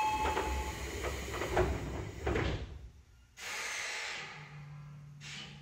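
The sliding doors of an Odakyu 8000 series train closing: a two-tone door chime fades out, the doors run shut with thuds about a second and a half and two and a half seconds in, then a short hiss of air from the pneumatic door engines. A low steady hum starts about four seconds in.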